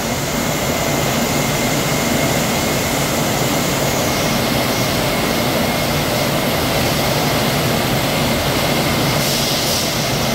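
Steady drone of industrial machinery as a powered roller conveyor carries a boxed pallet of yarn cones, with a faint steady high whine running through it.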